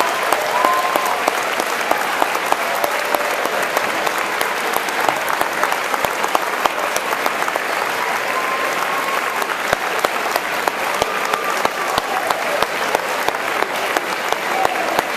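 A large crowd applauding in a school gymnasium: a long, steady round of clapping that does not let up.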